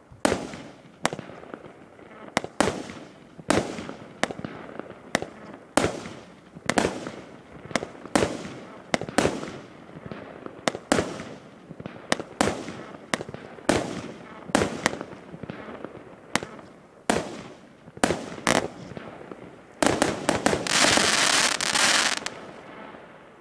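Multi-shot fireworks cake firing, a steady run of shots and bursts about one to two a second. About 20 seconds in it ends in a dense crackling burst lasting some two seconds, which then dies away.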